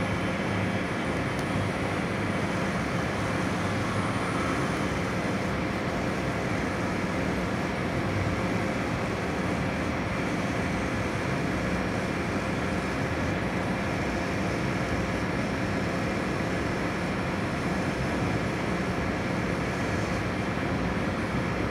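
Metal lathe running steadily while a tool bit takes a turning cut along a metal bar: an even machine hum with a steady tone through it.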